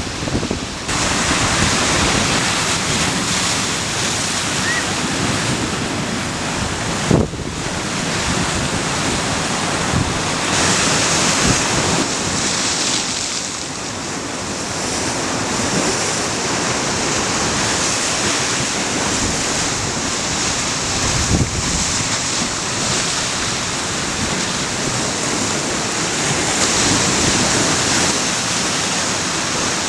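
Ocean surf on a beach: a continuous wash of breaking waves that swells and eases, with wind buffeting the microphone and a couple of low thumps, about seven and twenty-one seconds in.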